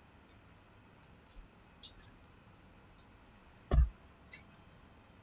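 Faint computer-mouse clicks, about seven of them at uneven intervals, with one louder, deeper click a little over three and a half seconds in.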